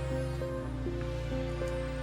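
Background music: a steady low drone under a slow line of held notes that change about every half second.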